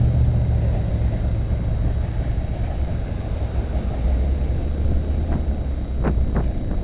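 CN freight train rolling past: a steady low rumble, with a few short sharp clicks near the end.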